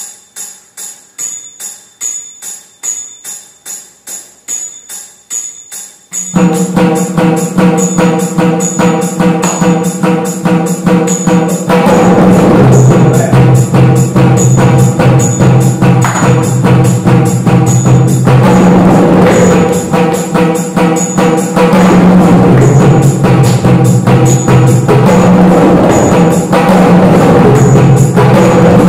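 Mridangam played solo at high speed: quieter, evenly spaced strokes about twice a second at first, then from about six seconds in a loud, dense run of rapid strokes with ringing pitched tones.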